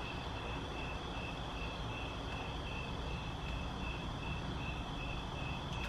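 An insect chirping steadily, a high, even chirp about three times a second, over a low, steady background hum.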